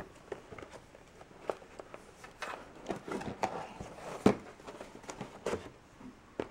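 A cardboard box being handled and opened: scattered rustles, scrapes and light taps of the cardboard and its lid, with one sharper knock about four seconds in.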